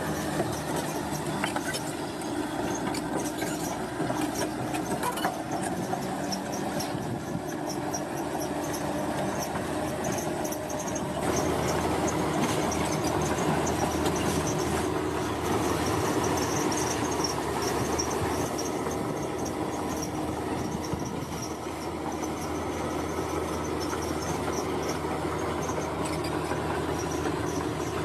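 Heavy road-construction machinery running continuously, a steady engine drone with scattered knocks and clanks, growing somewhat louder about eleven seconds in.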